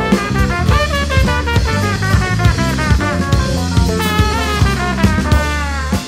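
Live jazz band: a trumpet plays an improvised solo line with falling pitch slides over drum kit and electric bass. The music breaks off right at the end.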